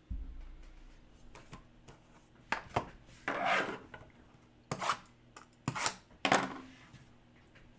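Hockey card box and packs being handled and opened on a table: a thump at the start, a string of sharp taps and knocks, and two longer rubbing scrapes of cardboard and wrapper.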